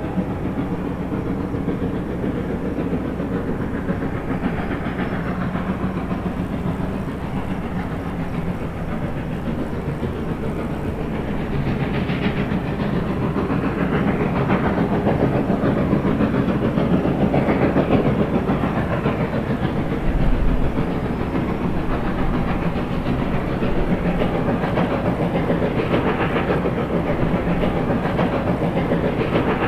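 Reading & Northern 425, a 4-6-2 Pacific steam locomotive, working upgrade with its train: a steady exhaust beat over the rumble of the train on the rails. It grows louder about twelve seconds in.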